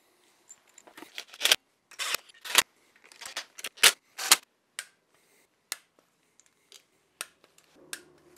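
Irregular sharp metallic clicks and clinks of tools and parts being handled while a water pump is fitted to an engine block. They come in a quick bunch over the first half and thin out to a few single clicks later.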